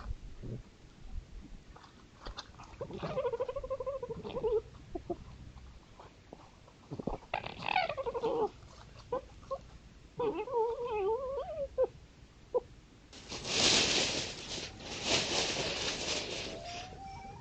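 Red foxes crying: three separate wavering, whining calls, the middle one falling steeply in pitch. About two-thirds of the way through comes a loud rush of noise lasting about three seconds, then a thin, slightly rising whine near the end.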